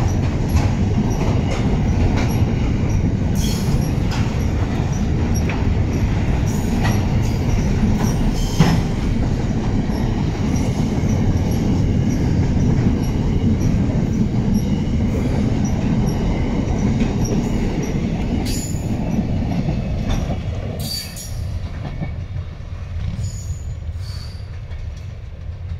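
Intermodal freight train's container wagons running past close by, a steady rolling noise with occasional clanks. About 20 seconds in the last wagon passes and the sound drops away as the train moves off.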